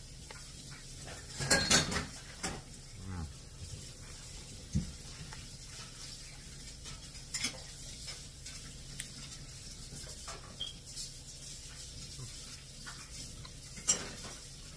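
A person chewing a mouthful of toast topped with steelhead roe caviar, heard as a scatter of short clicks and smacks, the loudest cluster about two seconds in.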